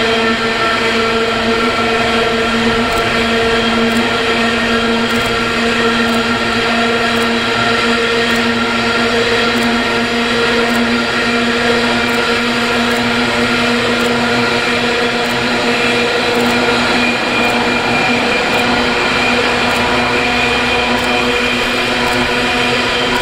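Diesel freight locomotive engines running steadily, a loud, even drone of fixed pitch. Faint regular ticks come about once a second over it.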